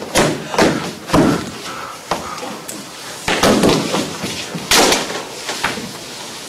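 A stabbed man collapsing onto a wooden stage floor: several heavy thumps and slams, the loudest a little before 5 seconds in, mixed with loud wordless cries and groans.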